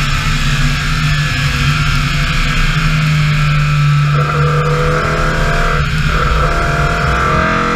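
BMW E30 M3's four-cylinder engine running hard at high revs as the rally car drives at speed, with wind and tyre noise on a wet track. The engine note is held steady for most of it and changes near the end, where the revs climb again.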